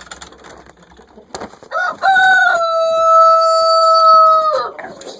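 Rooster crowing once, close by: a few short opening notes, then a long held note that falls slightly, the whole crow lasting about three seconds.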